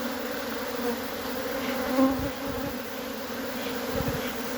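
A disturbed honeybee colony buzzing in a steady hum as its bees are scooped out of the opened hive by hand. Two dull knocks come about two and four seconds in.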